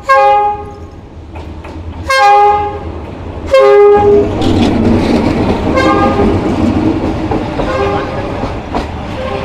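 Train horn sounding in long blasts, three within the first four seconds. From about four seconds in, the train runs past close by with a steady, loud rumbling noise, and the horn sounds a few more times, more faintly.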